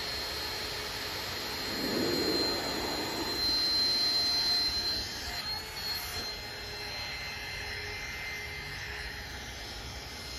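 Water from a garden hose running into an inflatable pool: a steady hiss with a thin high whistle in it, louder for a few seconds about two seconds in.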